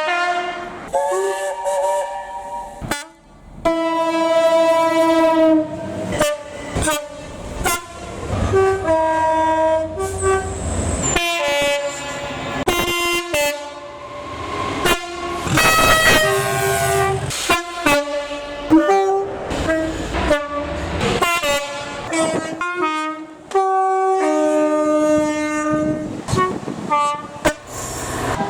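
Train horn sounded over and over: a long string of short and longer blasts that jump between several different pitches, like a multi-tone horn played as a tune.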